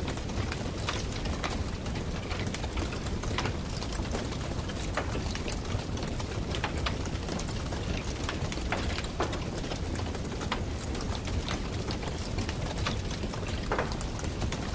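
Campfire burning with a steady hiss and irregular sharp crackles and pops of the wood.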